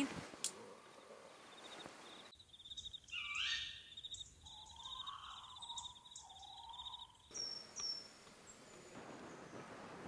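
Faint forest ambience: bird calls with gliding notes over a rapid, high, pulsing trill, and two short falling chirps near the end. The sound changes abruptly twice.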